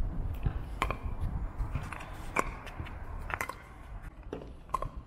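Pickleball paddles striking a plastic ball in a rally: four sharp, ringing pocks roughly a second apart, with lighter knocks between them, over a low steady rumble.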